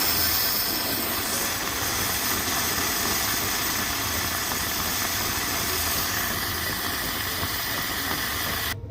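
Espresso machine letting out a loud, steady hiss of steam for about nine seconds, as when its steam is used for the milk. It starts abruptly and cuts off sharply near the end.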